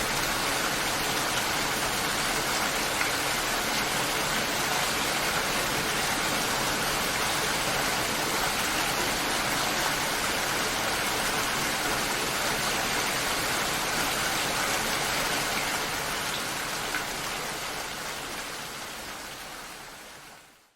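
Steady rain falling, an even hiss of drops that fades out over the last five seconds or so.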